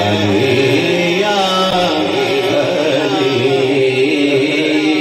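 A man singing a naat into a microphone, drawing out long, wavering notes in a slow melismatic line, amplified over a PA system.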